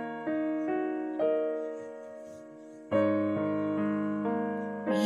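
Background piano music: a slow, gentle melody of single notes over held chords, with a louder chord struck about three seconds in.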